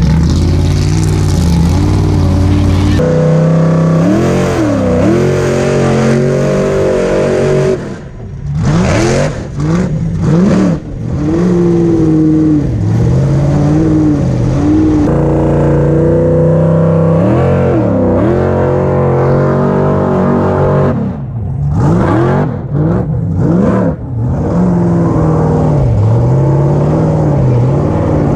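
Formula Offroad buggy's engine heard from onboard, revving up and down over and over under hard throttle, with two short lifts where it drops away and then comes back in quick throttle blips, about a third of the way in and again later.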